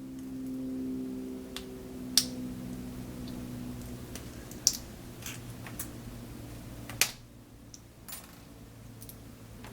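Sharp metal clicks and ticks from small tools working a stubborn C-clip off a DOM ix KG lock cylinder, the loudest about two, four and a half and seven seconds in, over a steady low hum.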